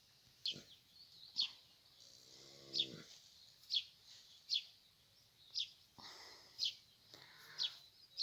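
A small bird chirping over and over: short, high, down-slurred notes about once a second. A low, drawn-out, pitched sound about a second long comes a couple of seconds in.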